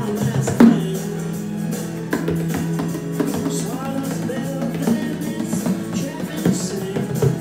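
Bodhrán frame drum beaten with a tipper in time with a recorded pop song with guitar and singing, with a sharp hit about half a second in.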